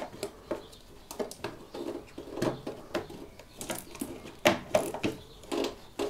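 Irregular clicks, knocks and scraping of washing machine motor parts being handled and slid back into place during reassembly, with a few louder knocks about halfway through and near the end.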